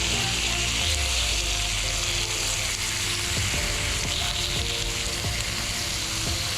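Meat sizzling as it fries, a steady crackling hiss throughout.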